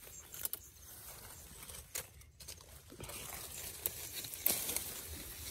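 Leaves rustling and stems snapping as a hand pulls a cluster of wild fruit off a shrub, with a few sharp snaps and a denser rustle in the second half.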